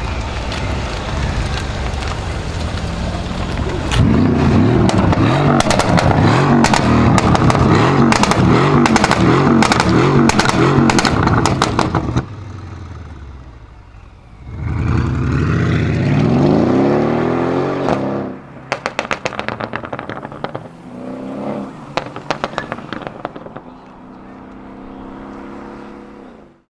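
RENNtech-tuned Mercedes-Benz CLS63 AMG's twin-turbo V8 accelerating hard with rapid exhaust crackles. After a brief drop it accelerates again, rising in pitch, then lifts off into bursts of crackles and pops. It settles to a steady hum that cuts off suddenly at the end.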